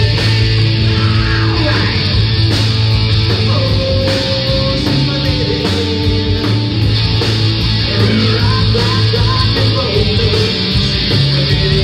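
A rock band playing live: electric guitar over bass and drums, at a loud, even level.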